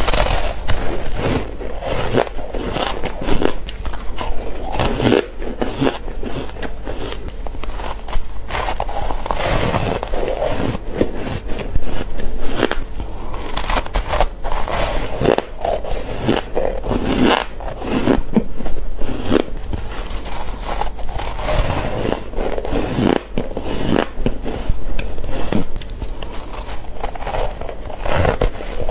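Close-miked crunching of ice being bitten and chewed, an unbroken run of irregular crisp crunches.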